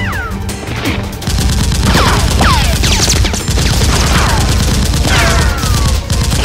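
Rapid automatic gunfire sound effects, with several falling whistling whines, over background music.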